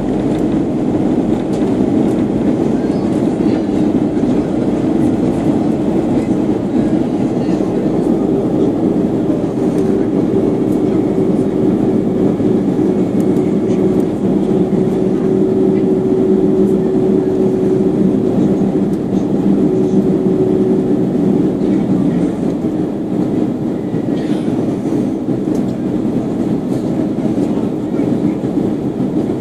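Steady cabin noise inside a Boeing 737-800 descending to land: its CFM56 turbofan engines and the air rushing past the fuselage make a dense, even rumble with a low steady hum running through it.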